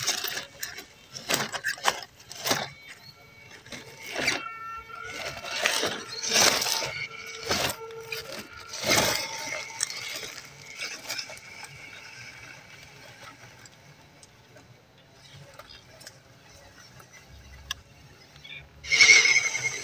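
A 1/12-scale MN99S Land Rover Defender RC crawler driving over stones and dry leaves: irregular crunching and scraping of its tyres, with a faint whine from its small electric motor, growing quieter over the second half as it moves away. About a second before the end, a loud steady high-pitched tone starts suddenly.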